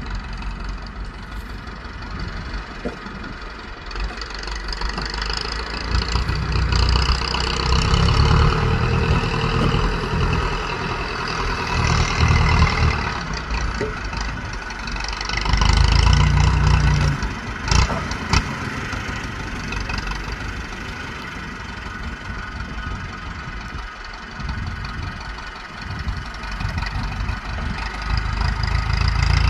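A truck or tractor engine running, growing louder and quieter as the load changes, with a couple of sharp knocks a little past the middle.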